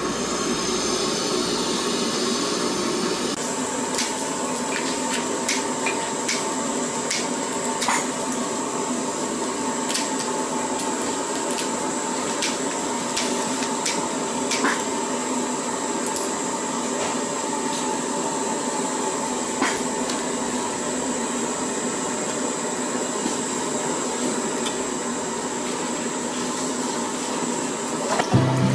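A steady mechanical whir with a thin high whine running through it, overlaid by scattered short clicks and clinks.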